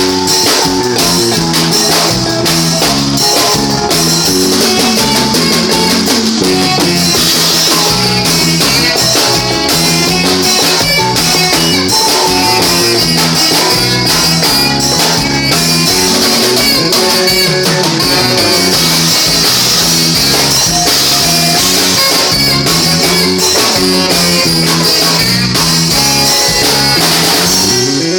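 Forró band playing a song at a soundcheck, led by a drum kit with guitar, at a loud, steady level.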